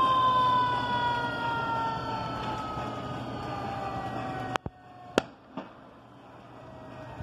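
Fire engine siren winding down, its pitch falling slowly and steadily. Two sharp clicks come about four and a half and five seconds in, after which everything is much quieter.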